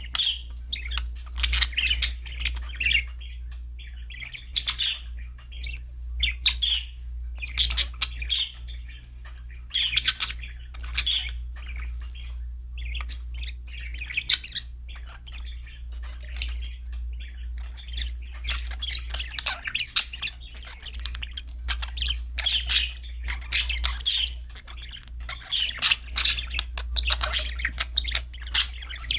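Budgerigars chirping and warbling in quick, irregular bursts with occasional squawks, over a steady low hum.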